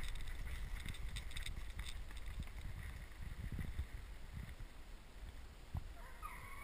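Low wind rumble on the camera microphone with some crackling movement, and about six seconds in a pack of fox hounds starts baying with gliding cries.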